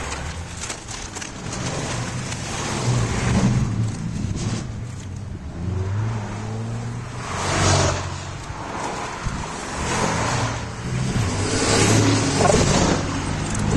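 Road traffic passing: car and truck engines with tyre noise, swelling and fading as each vehicle goes by. A utility bucket truck passes close near the end, among the loudest moments.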